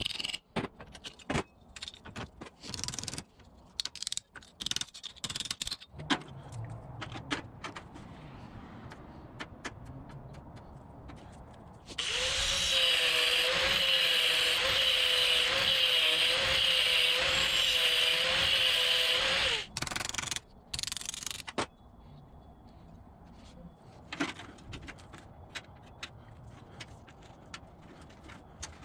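Handheld power tool running for about seven seconds at a steady, slightly wavering whine during metal repair, with scattered knocks and clicks of tools and metal being handled before and after it.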